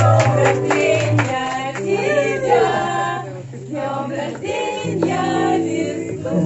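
A song: several voices singing over long held bass notes.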